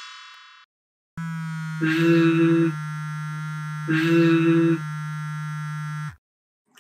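Synthesized electronic buzz, a steady low-pitched drone that lasts about five seconds and swells louder twice before cutting off, used as a sound effect for the vibrating V sound. The tail of a chime fades out at the start.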